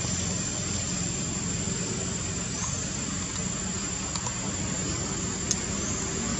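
Steady low engine-like hum over an even background noise, with a thin high steady whine and a few faint short rising chirps.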